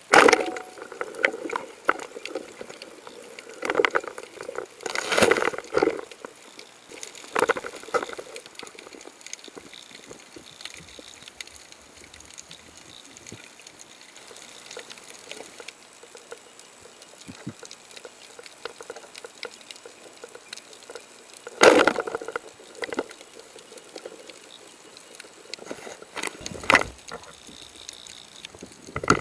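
Muffled underwater water noise picked up by a submerged camera, broken by short bursts of bubbling and rushing water at irregular intervals, the loudest near the start and about two-thirds of the way in.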